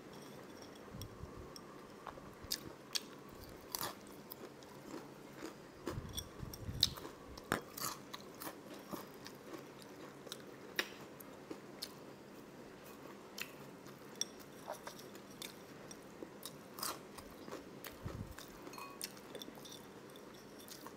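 Close-miked crunchy chewing and biting of fried dried fish (tuyo): irregular crisp crackles and clicks, with soft mouth sounds between.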